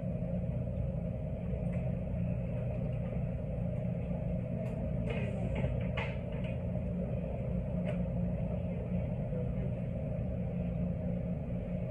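Steady low drone of laundromat dryers and washing machines running, with a few faint clicks in the middle.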